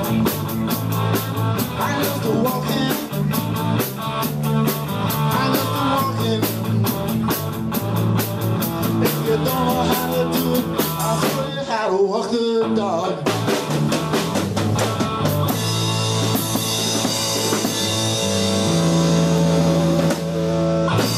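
Live rock band of electric guitar, bass guitar and drum kit playing. The beat drops out about twelve seconds in, and the song closes on long held chords under ringing cymbals.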